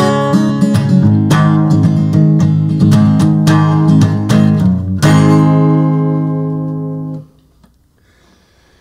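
Acoustic guitar, capoed, strumming the song's closing bars, then a final chord struck about five seconds in that rings for about two seconds and is cut off suddenly.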